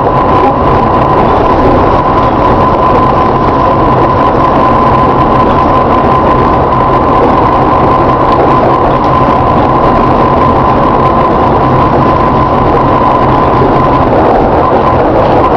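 Volvo B7TL double-decker bus running, with a steady, high-pitched groaning tone held constant over the low rumble of the engine.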